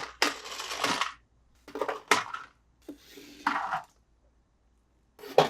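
Toy cars and plastic packaging being handled: a string of short clinks, clicks and rattling bursts, with brief pauses between them.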